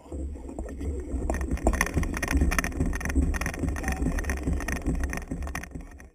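Fishing reel and rod working under load while a fish is fought, with dense rapid clicking and rattling over a low rumble of wind and handling on the camera microphone. The sound starts and stops abruptly.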